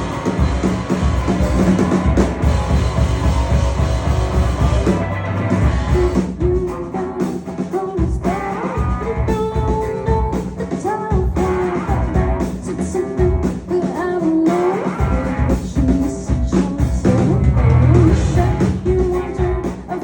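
Live rock band playing: drum kit, bass and electric guitar, with a voice singing a melody over them from about six seconds in.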